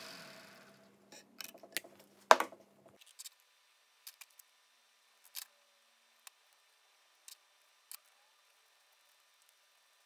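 Draper bench grinder winding down after being switched off, its hum fading away within the first second. Then scattered clicks and clinks of small metal parts handled on a wooden workbench, a steel plate with a ball stud and its screws; the loudest knock comes a little over two seconds in, and lighter clicks follow every second or so.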